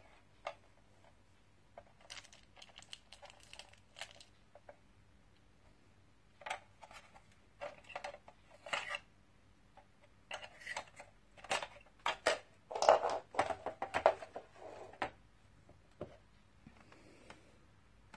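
Hard objects being handled, probably plastic parts or packaging: irregular clusters of clicks, knocks and clatter, busiest and loudest a little past halfway. No motor is running.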